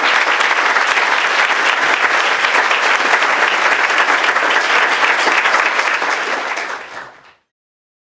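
Audience applauding: many hands clapping in a dense, steady patter that tapers near the end and then cuts off suddenly.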